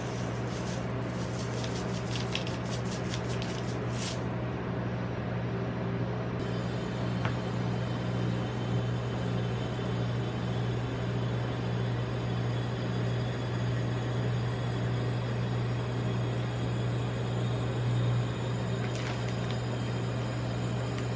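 Steady low hum of a rolled-ice-cream cold-plate machine, with a quick run of light metal spatula taps on the plate over the first four seconds.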